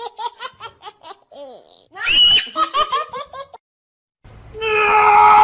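High-pitched human laughter in quick rhythmic giggles, heard twice about two seconds apart. It cuts off after about three and a half seconds, and a steady sound of several held tones over a hiss starts near the end.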